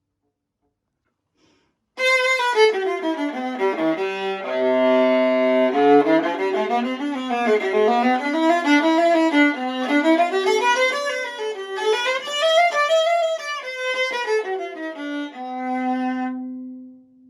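Antique German Mittenwald viola, about 1890 with a 15.5-inch body, bowed solo after about two seconds of silence: a flowing passage of quick notes that climb and fall, dipping to low notes near the bottom of its range about four seconds in, and ending on a long held note.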